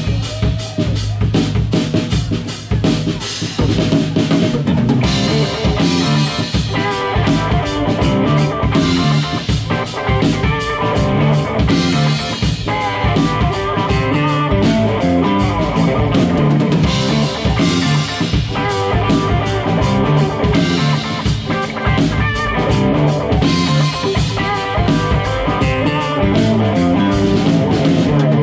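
A live band playing a song, with drum kit and guitar over a steady beat.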